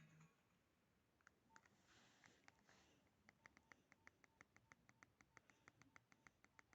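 Faint keypad beeps from a Nokia 1616 mobile phone. After a few scattered clicks, short beeps repeat evenly about six times a second from about three seconds in.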